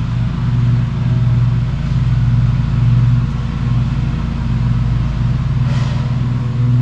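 A steady, loud low hum from a running motor, with a slight regular pulsing and no change in pitch.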